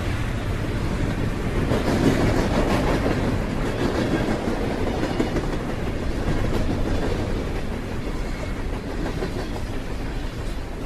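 A passing train: steady, continuous running noise with most of its weight low down, slowly getting quieter.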